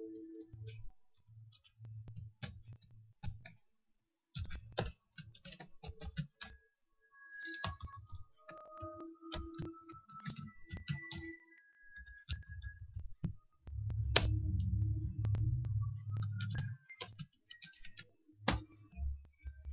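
Computer keyboard keys and mouse buttons clicking irregularly, in clusters of quick clicks with short gaps between them. About two-thirds of the way in there is a low rumble lasting a few seconds, the loudest part.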